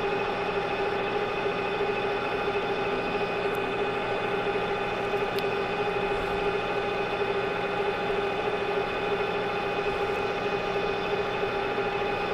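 Manual metal lathe running steadily, the carriage feeding the cutting tool along a 1-inch shaft on a light finishing pass about five thousandths deep. The machine gives an even whine made of several constant tones.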